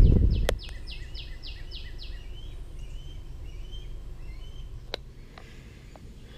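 A songbird singing a quick series of about seven down-slurred whistled notes, followed by a few fainter chirps, over steady outdoor background noise. Low wind rumble on the microphone cuts off about half a second in.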